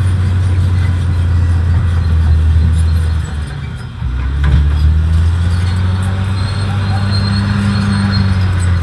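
Caterpillar D6R XL bulldozer's diesel engine running steadily under load. Its level drops for about a second, about three seconds in, then comes straight back.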